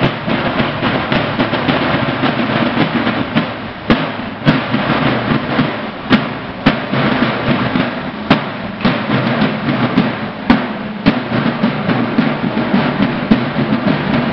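Snare drums of a Mexican banda de guerra playing a marching beat: dense, continuous rolls with sharp, loud strikes standing out every second or so through the middle.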